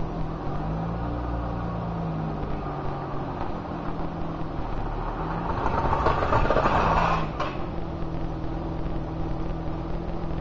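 BMW 325iX's straight-six engine running and revving under load as the all-wheel-drive car drives off a jack to test its transfer case, with the pitch rising about a second in. A louder rushing surge lasts a second or two about six seconds in, as the car moves.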